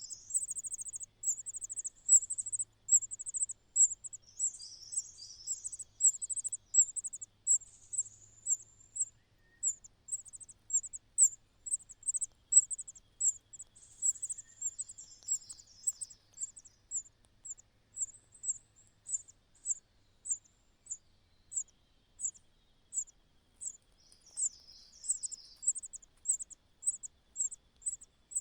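A cricket chirping steadily in short high chirps, close-packed for the first few seconds and then about one and a half a second. A few times, softer wavering bird calls sound beneath the chirps.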